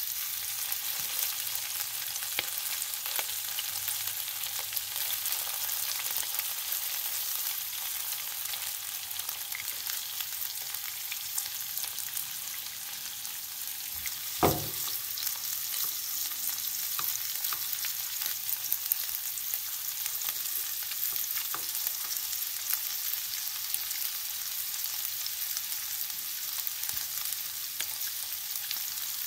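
Meatballs and onions sizzling in hot oil in a non-stick frying pan, with light taps as wooden chopsticks prod and turn them. A single sharp knock about halfway through.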